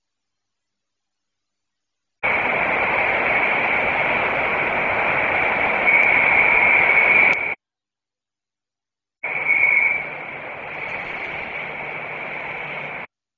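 Hissing radio-like static that cuts in and out abruptly, two stretches of several seconds each with dead silence between.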